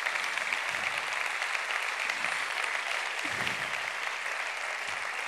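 A large audience applauding, a steady round of clapping.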